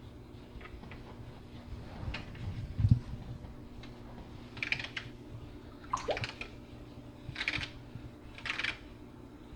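Algae scraper rasping across aquarium glass in about four short strokes, with a dull thump about three seconds in, over a steady low hum.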